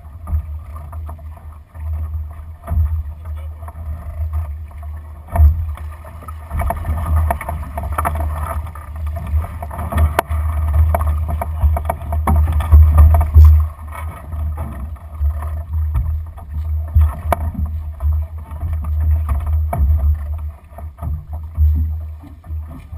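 Wind buffeting the microphone of a camera on a Lightning sailing dinghy, over a steady rush of water along the hull, with scattered knocks and clicks from crew and rigging as the boat tacks.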